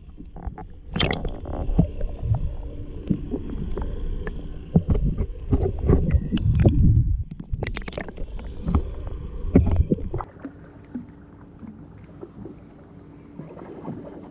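Muffled underwater rumble of water rushing past a waterproof camera housing held below the boat, with many sharp knocks against the housing. After about ten seconds it drops to a quieter, steady low hum.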